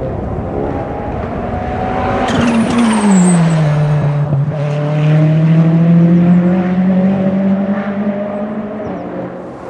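Ferrari 488 GT3 twin-turbo V8 race engine running hard; about two seconds in its note drops sharply, then holds a lower pitch that slowly climbs and grows louder through the middle.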